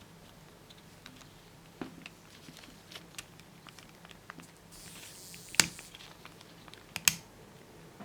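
Scattered light clicks and taps of parts and tools being handled during washing machine repair, with a brief hiss about five seconds in and two sharper clicks, one just after the hiss and one about a second and a half later.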